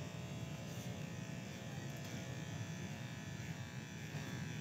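Electric hair clippers buzzing steadily as they cut hair.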